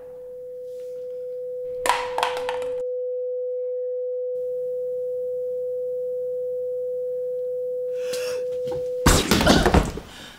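A steady pure ringing tone, the ear-ringing film effect that follows a gunshot, held for about nine seconds. There is a short thud about two seconds in. About nine seconds in, the tone cuts off under a sudden loud burst of noise.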